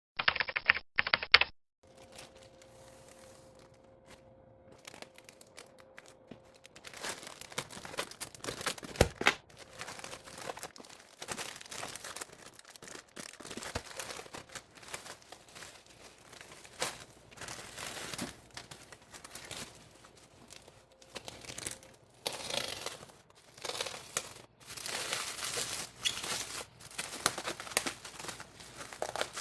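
Packaging being torn open and crinkled by hand during an unboxing: irregular rustling and tearing with small clicks, busier in the second half.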